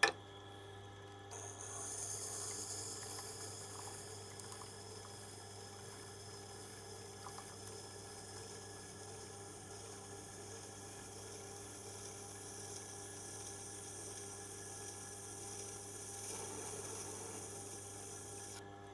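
Tool-steel oboe reed scraping tool being ground on the Tormek's water-cooled grinding wheel: a steady high hiss of steel on the wet stone starts about a second in and stops just before the end. Under it runs the low, steady hum of the grinder's motor.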